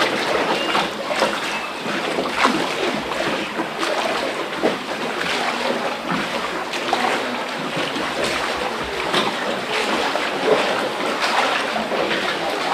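Water splashing and sloshing: a steady rush broken by irregular sharp splashes.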